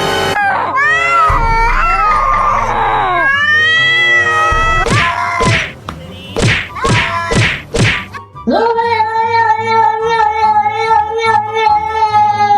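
Edited sound-effect clips: a run of gliding, wailing pitched cries, then several short rising-and-falling calls, then from about eight and a half seconds in a long held note that pulses about four times a second.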